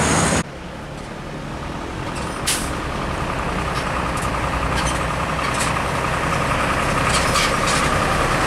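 Diesel trucks approaching slowly and growing louder. Short air-brake hisses come through, the loudest about two and a half seconds in and fainter ones later. Just after the start, louder traffic noise cuts off abruptly.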